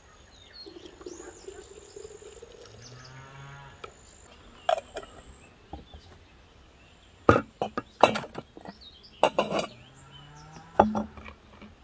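A cow mooing twice, each a low drawn-out call, the second rising in pitch, with birds chirping. Several loud, sharp knocks come in the second half.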